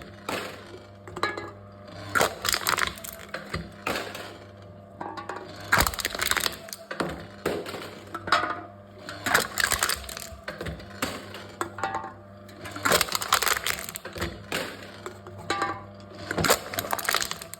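Aluminium drink cans being crushed by a crushing machine: bursts of crunching, crackling metal come about every three to four seconds over a steady low hum.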